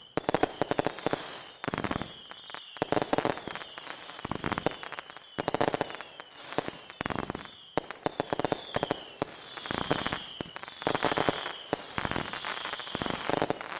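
Fireworks display: shells bursting in repeated bangs, every second or two, with dense crackling after each and brief high whistles between them.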